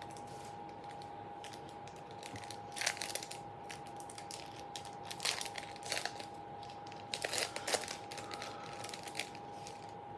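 Wrapper of a pack of trading cards being torn open and crinkled by hand, in several short rustling bursts.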